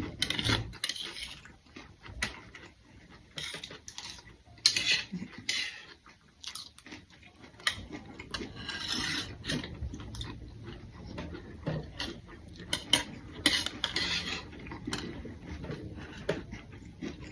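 Cutlery clinking and scraping against plates as food is scooped up quickly, in irregular clicks and short scrapes.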